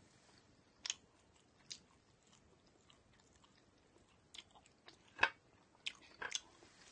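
A person chewing a bun topped with spicy pork floss, with scattered sharp mouth clicks and smacks. The loudest click comes a little past five seconds in.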